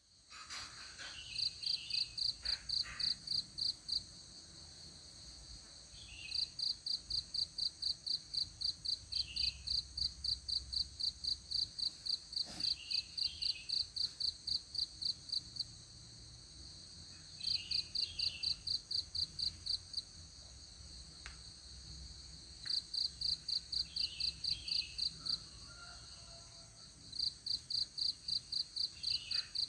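Insects chirping in a rapid, even pulse of several chirps a second, in bouts of a few seconds to about ten seconds with short pauses between, over a steady high insect hiss.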